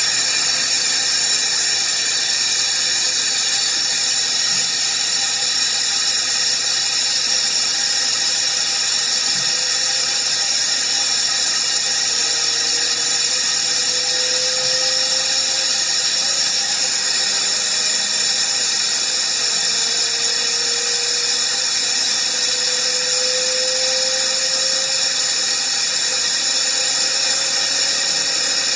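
Home-built JM50 turbine being spun for a start, giving a steady, high-pitched drill-like whine with a fainter tone creeping slowly upward in pitch. It is not reaching enough rpm to start.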